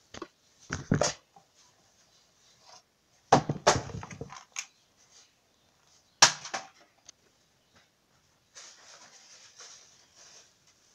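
Handling noise: three clusters of sharp knocks and rustles about a second, three and a half seconds and six seconds in, then a faint rustling over the last couple of seconds.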